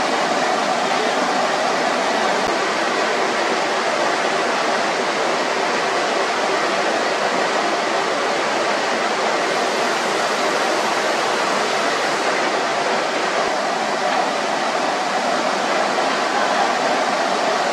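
Steady, even rushing noise of a ceramics workshop, with no separate knocks or clatters standing out.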